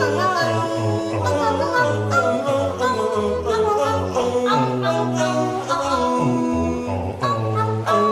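A cappella singing by cartoon seal characters: several voices in harmony over a low sung bass line, with no instruments.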